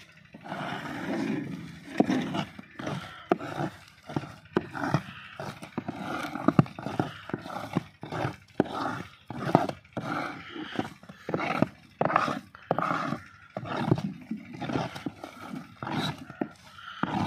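Metal-bladed hand scraper working thick, setting jaggery paste in a shallow iron tray, with irregular scraping strokes and knocks, roughly two a second. The paste is being worked so that it breaks down into granular shakkar.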